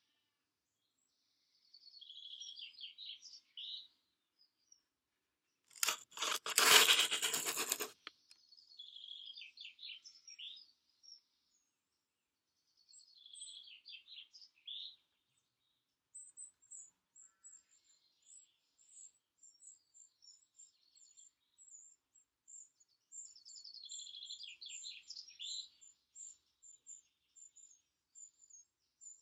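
Songbirds singing in a garden: several short, descending trilled song phrases, and from about halfway on a rapid run of very high, thin chirps. About six seconds in, a loud rustling crackle lasts about two seconds.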